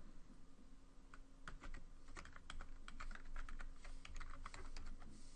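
Computer keyboard being typed on: quick, irregular keystrokes as code is entered, with short pauses between bursts.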